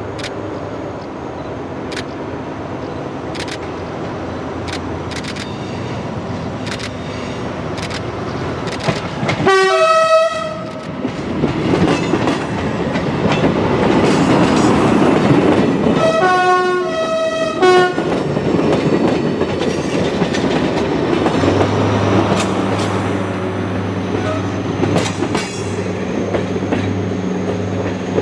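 Vintage diesel railcar hauling a train of coaches, approaching and passing with its engine running. It sounds its horn twice, a short blast about ten seconds in and a longer one around sixteen seconds in. The wheels click over the rail joints, and the engine drone carries on as the train goes by.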